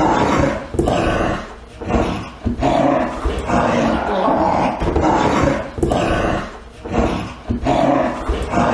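Dogs growling and snarling in repeated bursts, about one a second.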